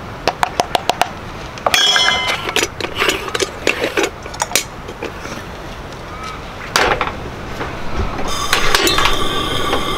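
Aluminium stovetop moka pot being filled and assembled: a quick run of light clicks, then metallic clinks and knocks as the coffee basket goes in and the top is screwed on. Near the end a portable gas camp stove burner is turned on and hisses steadily with a faint whistle.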